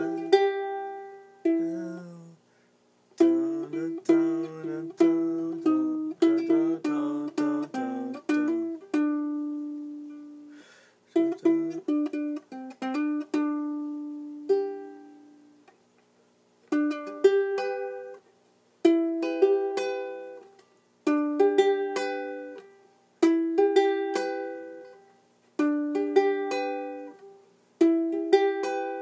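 Music played on a plucked string instrument: picked notes and chords, each ringing out and fading, in short phrases broken by brief pauses.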